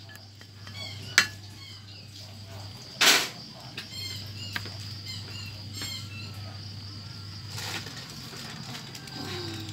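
Metal spatula tapping and scraping in a large wok of curry, with a sharp tap about a second in and a louder, short scrape about three seconds in. Birds chirp throughout over a steady low hum.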